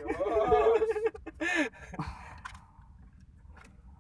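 A person's voice, drawn out and bending up and down, through the first couple of seconds, then a few small sharp clicks over low background noise.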